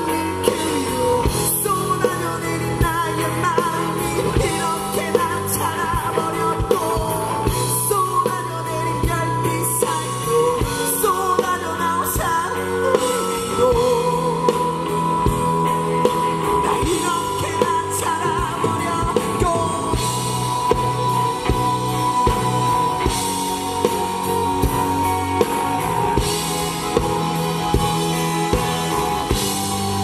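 Live band playing through a PA: a male lead vocalist sings into a handheld microphone over electric bass and a drum kit.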